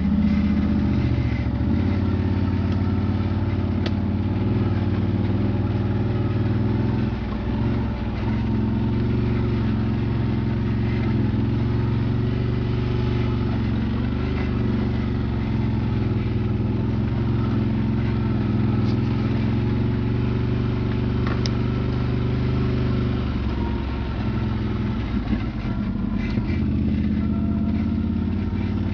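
Quad bike (ATV) engine running steadily under way on a rough dirt trail, heard from on board. The engine note drops briefly about seven seconds in and wavers near the end as the throttle changes, with a few sharp clicks.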